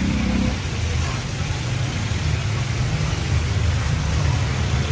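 A steady low engine rumble, like a vehicle idling nearby, over the hiss of chapli kababs frying in a large pan of deep oil.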